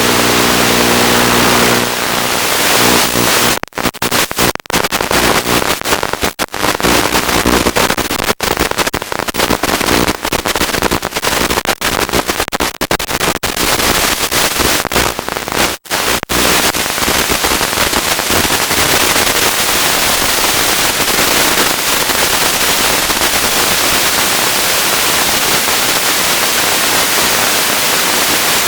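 Loud hiss of radio static from an analog FPV video link, with a steady buzz for the first two seconds. From about 4 to 16 s the static turns choppy with brief sudden dropouts as the signal breaks up, then settles back to a steady hiss.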